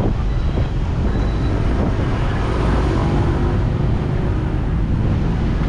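Steady street traffic noise with a constant low rumble, and a faint passing engine hum around the middle.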